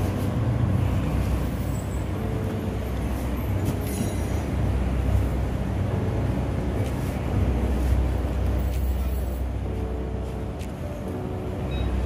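Steady low rumble of street traffic and vehicle engines, with a faint hum that comes and goes.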